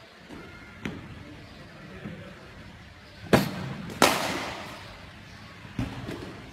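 A cricket bat striking tennis balls in an indoor practice net: a light knock about a second in, then two loud sharp cracks a little past halfway, the second ringing on in the hall, and another knock near the end.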